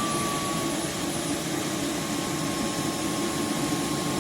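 roborock F25 wet-dry vacuum running its deep self-cleaning cycle in the dock: a loud, steady whir of the suction motor and roller with a thin high whine on top.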